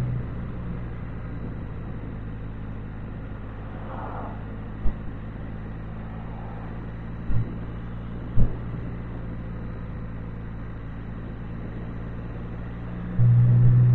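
Can-Am Spyder three-wheeler engine running at a steady cruise, a constant hum with road and wind noise. Three brief knocks come in the middle. Near the end the engine suddenly gets louder.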